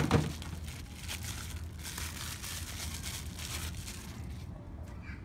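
Packaging crinkling and rustling as it is handled and opened, after a brief thump at the start.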